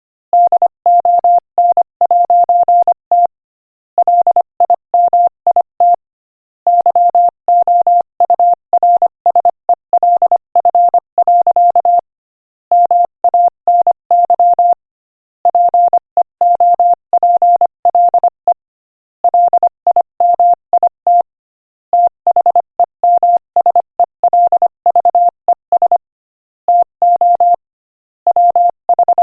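Morse code sent at 25 words per minute as a beep at one steady pitch, keyed in short dits and longer dahs and grouped into words with brief pauses between them.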